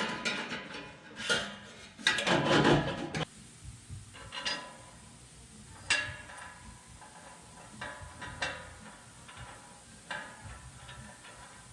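Hand work on a truck's exhaust: two louder scraping clatters in the first three seconds, then scattered light metallic clicks and taps of parts and tools.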